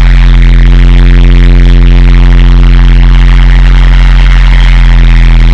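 Loud, steady electronic drone from a harsh-noise / dark-ambient track: a deep unchanging hum with a stack of held tones above it and a harsh hiss over the top.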